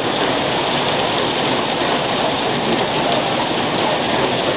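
Heavy rain pouring down and splashing onto a flooded paved terrace: a steady, dense hiss.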